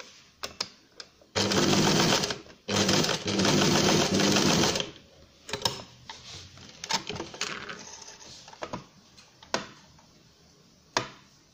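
Household electric sewing machine stitching through felt in two runs, the first about a second long and the second about two seconds, followed by scattered sharp clicks.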